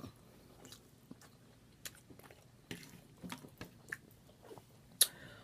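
A person chewing and smacking on a mouthful of food close to the microphone: soft, wet mouth clicks at irregular intervals, with one sharper click near the end.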